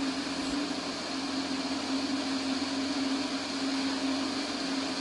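Small single-engine propeller aircraft in cruise flight: a steady engine and propeller drone, one constant low hum under an even rush of air.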